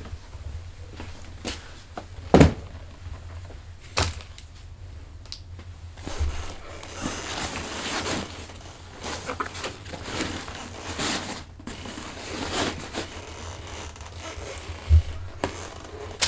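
Gear being packed into a fabric backpack: rustling, scraping and handling noises, with a few sharp knocks in the first four seconds.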